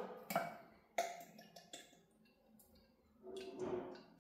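Clicks and taps of a glass olive-oil bottle being opened and handled, then, near the end, olive oil pouring from the bottle into a small glass cup.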